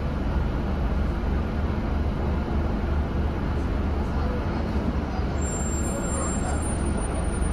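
Scania N230UD double-decker bus's diesel engine running steadily while the bus creeps in queued traffic, a deep low rumble heard from the upper deck with road and traffic noise over it.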